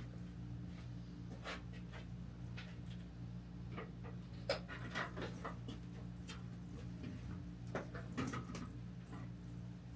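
Scattered light knocks, clicks and rustles of things being handled and moved, the sharpest about halfway through and a few more near the end, over a steady low hum.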